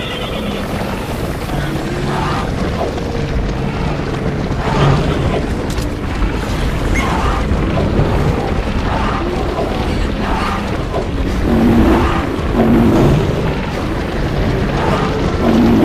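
Stampede sound effect: a continuous heavy rumble of many running hooves, with animal calls breaking through now and then.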